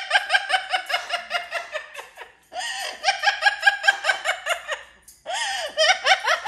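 Amazon parrot mimicking human laughter: three runs of rapid 'ha-ha-ha', each starting loud and fading away, with a short hissy intake before the second and third runs.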